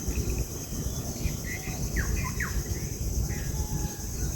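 Outdoor pond-side ambience: a steady low rumble and a constant high insect buzz, with a few short bird chirps and quick pitch-gliding calls around the middle.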